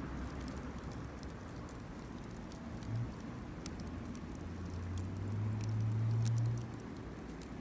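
Irregular sharp crackles and pops from a wood campfire, with a low steady hum rising in for about two seconds in the second half, then stopping.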